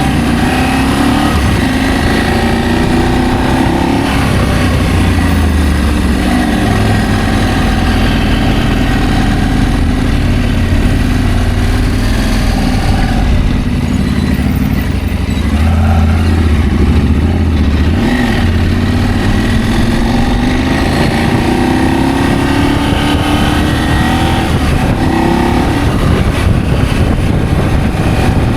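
Adventure motorcycle engine running on the move, its pitch rising and falling several times as the throttle opens and closes.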